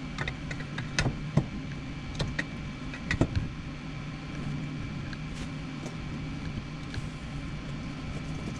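Scattered clicks and light knocks of a steering column and its switch parts being handled and offered up under a car's dashboard, over a steady low hum.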